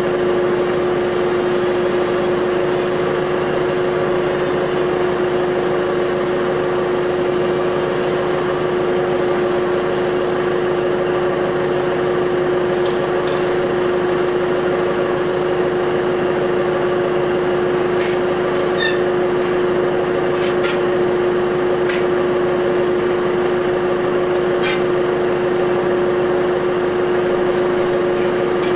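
An engine running at a steady speed, a constant unchanging drone, with a few faint ticks over it in the second half.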